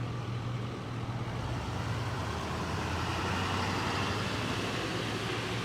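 A large vehicle's engine running steadily with a low hum, under a haze of outdoor traffic noise that grows a little louder in the middle.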